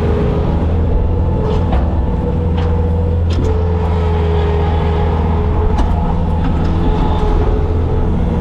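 Bobcat skid steer's diesel engine running steadily, with a higher whine that comes and goes and a few short knocks.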